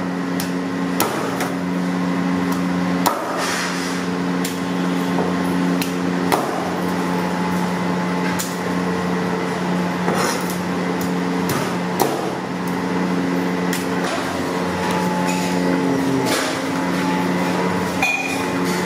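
Meat cleaver chopping frozen fish blocks on a wooden cutting board: sharp, irregular chops roughly a second apart, over a steady machine hum.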